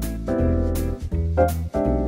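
Instrumental background music: a light jazzy piano tune with a steady beat.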